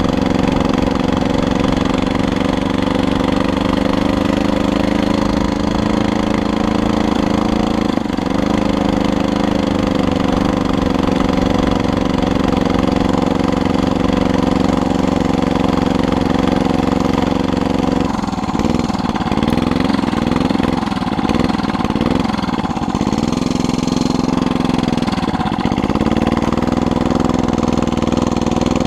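Small engine of a homemade motorized bike running under load, a slow putting note. Over the second half its speed dips and recovers several times, as the bike struggles slowly up a hill.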